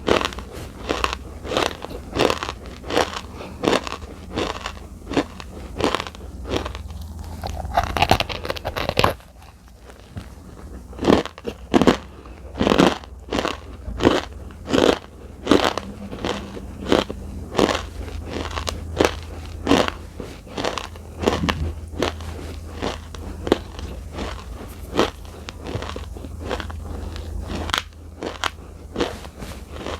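Close-miked chewing of dry edible clay (Nakumatt clay): crisp crunches, about two a second, with a short quieter pause about ten seconds in before the crunching resumes.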